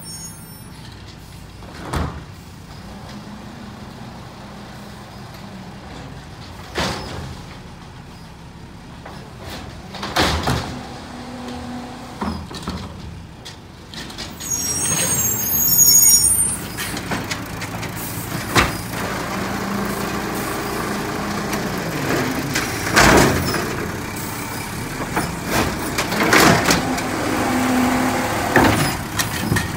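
Garbage truck working, its engine running beneath repeated bangs and clanks. The noise grows louder from about halfway, with a brief high squeal at that point.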